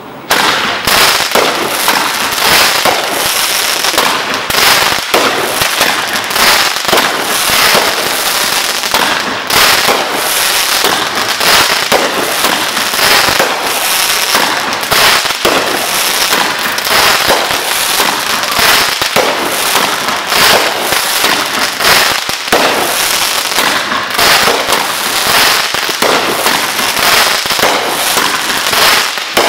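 Consumer fireworks going off nonstop at close range: dense, rapid crackling and popping with sharper bangs mixed in, starting abruptly just after the start.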